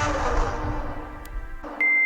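A rumbling, explosion-like sound effect dies away, then a steady high-pitched beep starts near the end.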